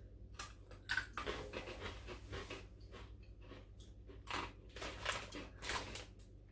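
Crunchy spicy cracker sticks being bitten and chewed: faint, irregular crunches.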